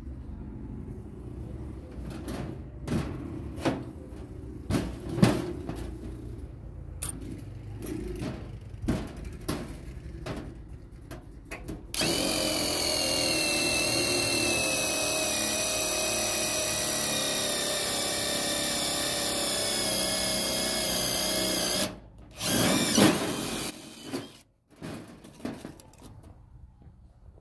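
A power tool runs steadily at full speed for about ten seconds, cuts off, then runs again briefly about a second later. Scattered clicks and knocks of parts and tools being handled come before and after.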